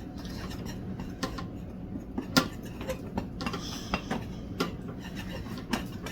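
A utensil clinking and tapping against a bowl while a mixture is stirred, in irregular clicks with one sharper knock about two and a half seconds in.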